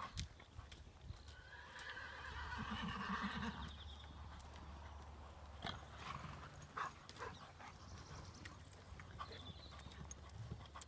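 Ridden grey pony trotting on an arena surface, its hoofbeats heard as scattered knocks. A horse calls once, a rough fluttering sound, between about two and three and a half seconds in.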